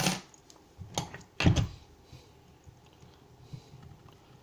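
Handling knocks: two sharp knocks about half a second apart as the padlock and its key are handled on a hard surface, then quiet room tone.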